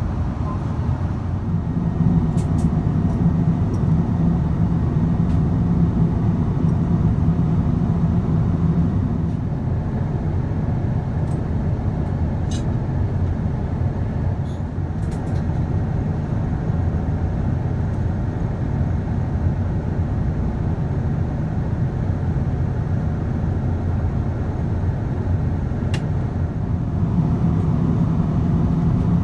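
Cabin noise of a Boeing 777-200ER at cruise: a steady low rumble of engines and rushing air, with a few faint clicks.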